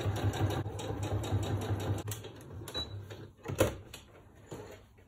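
Domestic electric sewing machine running, stitching a seam with a rapid, even needle rhythm that slows and stops about three seconds in. About half a second later comes a single sharp click, then a fainter one.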